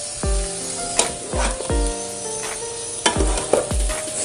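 Meat sizzling in a frying pan, under background music with a steady beat.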